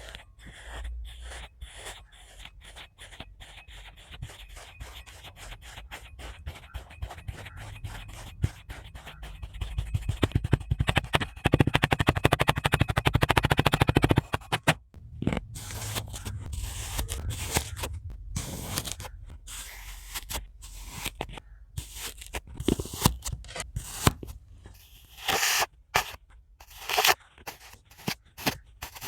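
A blade cutting through a crunchy, crumbly block, as in kinetic-sand and soap-cutting ASMR. Rapid fine crackling comes first, then a loud dense crackle lasting a few seconds around the middle, then separate crunching cuts and scrapes.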